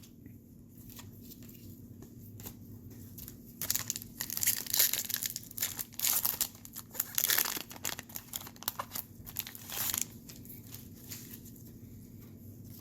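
Baseball card pack wrappers being torn open and crinkled, in a run of loud crackling bursts from a few seconds in until near the end, with light handling ticks before and after.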